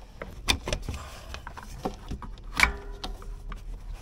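Scattered knocks, clicks and rattles of a hand groping for and twisting the oil filter tucked up beside a Polaris Ranger 800's engine. The loudest knock comes about two and a half seconds in.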